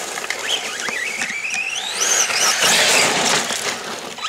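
Arrma Senton 3S BLX RC short course truck's brushless motor whining at speed, the pitch rising and falling as the truck speeds up and slows down, climbing highest a little past halfway.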